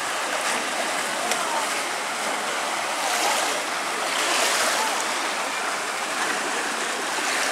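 Water rushing steadily out of a water slide's outlet into the splash pool, with splashing that grows louder in the middle as a rider comes off the slide into the water. Faint voices sound in the background.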